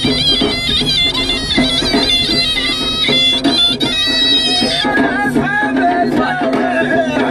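Tunisian rboukh music: a zokra, a loud reed shawm, plays a high wailing melody over tabla drum strokes. About five seconds in, the high reed line gives way to a lower melody.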